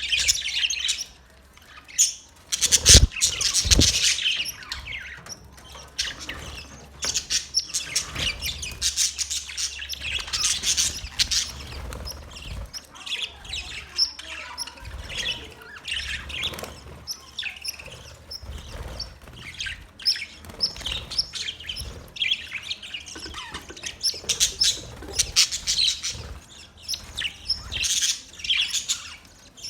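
A colony of budgerigars chirping and chattering, many short high calls overlapping without a break. A couple of louder knocks come about three and four seconds in.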